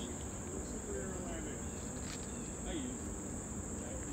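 Steady high-pitched chorus of summer insects shrilling without a break.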